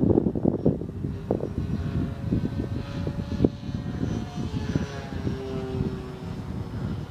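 Electric motor and propeller of a ParkZone Fw 190 RC warbird flying past, a thin whine that slides in pitch as it passes. Heavy wind buffeting on the microphone covers it, loudest in the first second.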